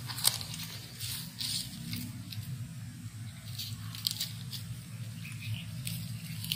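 Cat biting and tugging at dry grass stalks, giving irregular crisp crunching and rustling crackles, the sharpest about a quarter second in. A steady low hum runs underneath.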